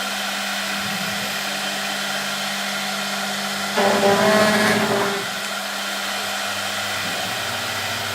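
Spindles of a four-spindle CNC wood router running, a steady whine over a high hiss. Shortly before four seconds in the sound grows louder and richer for about a second, then settles back to the steady running.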